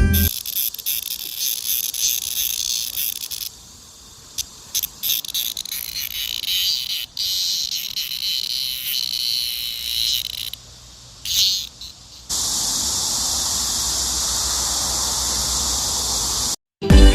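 Cicadas singing, edited together from several takes: first a pulsing song, then short bursts, then, about two-thirds of the way in, a steady high-pitched buzz that cuts off suddenly near the end.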